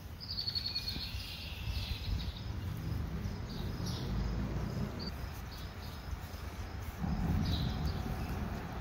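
Outdoor ambience: high chirps, strongest in the first couple of seconds and returning briefly twice, over a steady low rumble on the microphone.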